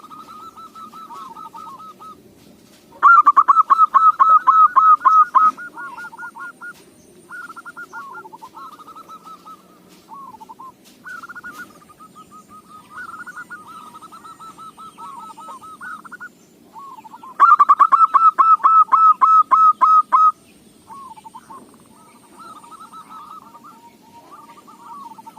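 Zebra doves (perkutut) cooing: fast, stuttering trilled coos at a fairly steady pitch, with two loud bouts, one about three seconds in and one well past the middle, and quieter cooing between.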